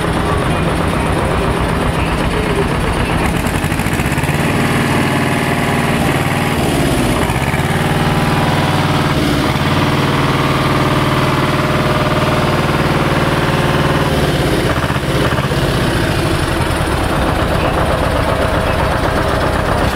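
A large engine running steadily, picking up from about four seconds in to fourteen seconds in, with its pitch dipping and rising a few times before it settles back.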